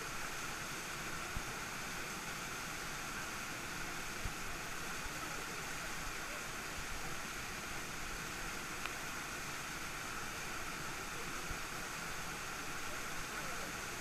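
Mountain stream rushing in white water down a small cascade over a rock slab: a steady, unbroken hiss of falling water.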